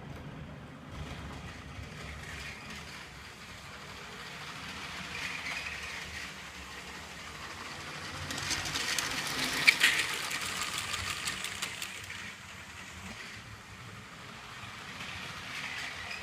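LEGO Power Functions train motor whirring as the train runs along plastic track, wheels ticking over the rail joints. It grows louder and fades as it passes by, loudest about ten seconds in, where there is one sharp click.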